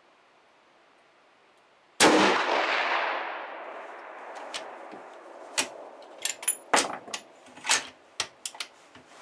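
.338 Lapua Magnum bolt-action rifle fired once about two seconds in, a very loud shot with a long fading tail. It is followed by a string of sharp metallic clicks and clinks as the bolt is worked and the spent brass case rings on the wooden floor.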